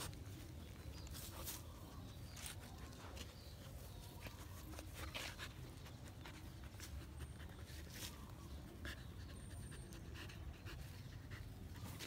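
A husky panting and sniffing as it noses through grass, with scattered short rustles of grass and leaves. A low steady rumble sits underneath.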